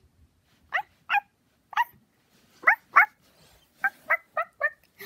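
Nine short, high-pitched yapping barks, each rising in pitch: three spaced out, then a pair, then four in quick succession.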